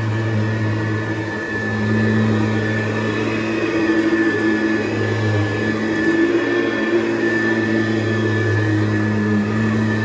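1976 Hoover U4317 upright vacuum cleaner running steadily: a motor hum with a high, steady whine over it.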